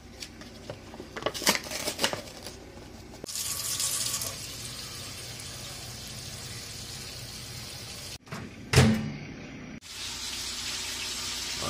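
A few seconds of paper-lid and cup handling clicks, then water running steadily into a stainless steel kitchen sink. After a cut there is one loud thump, then the running water again.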